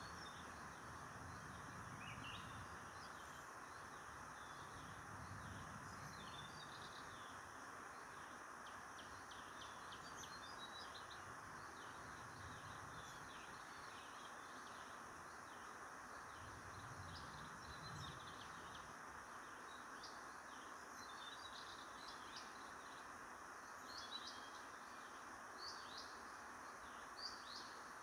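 Faint outdoor ambience with small birds chirping: many short, high chirps over a steady hiss. The chirps come thicker and louder over the last few seconds.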